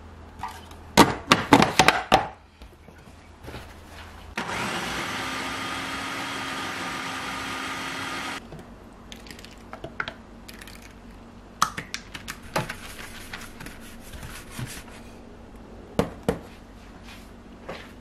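Food processor running for about four seconds, pureeing chunks of kiwi and pear. Before it, a burst of sharp knocks as a cinnamon jar is shaken over the plastic processor bowl. After it, scattered clicks and knocks as a silicone spatula scrapes the puree out of the bowl.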